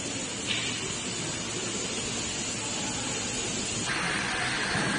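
CNC router gantry travelling back to its machine zero point under its axis drive motors, a steady hissing whir; its pitch shifts lower about four seconds in.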